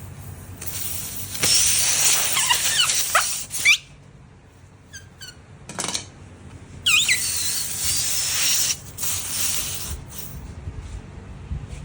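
Two long bursts of hissing air, each with squealing whistles that slide down in pitch, and a couple of short squeaks between them.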